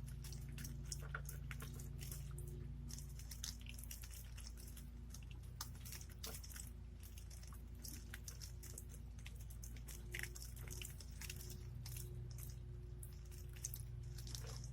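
Water running and dripping, with small splashes and droplets ticking irregularly over a faint steady low hum.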